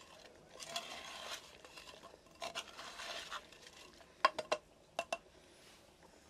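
A metal spoon stirring and scraping thick chicken masala in a clay handi pot, in two stretches of about a second each. Then five sharp clinks of the spoon against the pot, three and then two.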